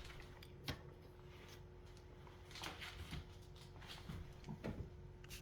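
A few light clicks and knocks of the refrigerator's bottom compartment being handled, over a faint steady hum.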